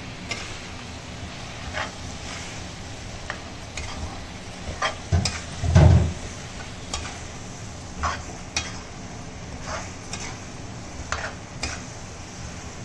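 Duck meat and onions sizzling in oil in a metal wok, stirred with a metal spatula that scrapes and clicks against the pan at irregular moments. A dull thump a little before halfway is the loudest sound.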